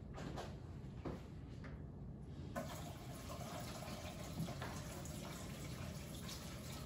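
Kitchen tap turned on about two and a half seconds in, then water running steadily into a stainless steel sink while hands are washed under it.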